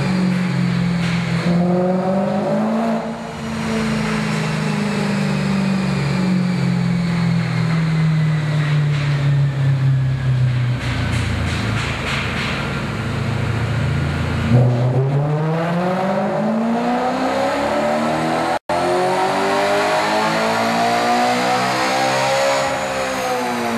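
BMW E92 M3's 4.0-litre V8, fitted with high-flow sport catalytic converters and an X-pipe, running on a chassis dyno. The engine note falls slowly for the first half, then climbs in a long rising pull for about eight seconds and drops away again near the end. A split-second gap in the sound interrupts the pull.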